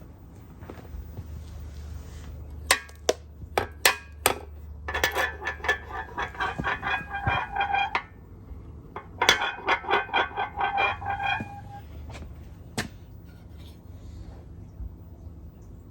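Hammer blows on ringing steel: a few sharp knocks, then two quick runs of about four ringing strikes a second with one more blow after a pause. A steady low hum runs underneath.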